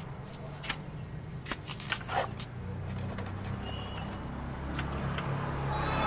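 Light metallic clicks and knocks in the first two seconds or so as the rear wheel axle of a Yamaha FZ-S V3 is worked out of the swingarm, then a low steady hum through the rest.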